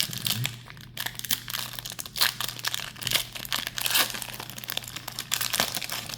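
Foil wrapper of a Pokémon TCG booster pack crinkling and tearing as it is handled and ripped open, with many sharp crackles throughout.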